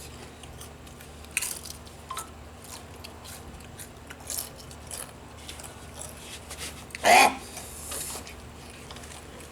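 Crunchy corn snack chips being bitten and chewed, with scattered crisp crunches. A short, louder sound stands out about seven seconds in.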